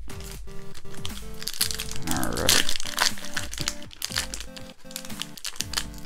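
8-bit lo-fi background music with a steady beat, and a foil booster-pack wrapper crinkling loudly for about a second and a half, starting about a second and a half in.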